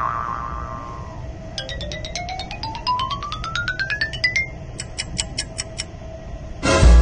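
Edited-in cartoon sound effects: a quick run of short xylophone-like notes climbing steadily in pitch, then a brief row of evenly spaced high ticks, about six a second, and a loud hit near the end. A low steady rumble runs underneath.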